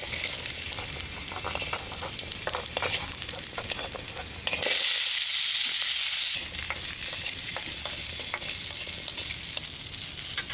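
Whole garlic cloves and then whole shallots frying in a wok: a steady sizzle with short clicks and scrapes of a wooden spoon stirring against the metal. The sizzle is louder for a couple of seconds in the middle.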